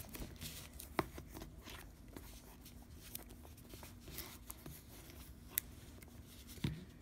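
Faint rustling and handling of a sealed trading-card box being opened, with a few sharp clicks and a soft knock near the end.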